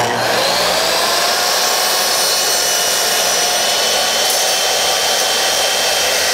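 Skil 10-inch sliding miter saw's corded 15-amp motor switched on and running at full speed while its blade cuts down through a board stood on edge. It starts suddenly, whines up to speed within the first half second, then runs at a steady pitch.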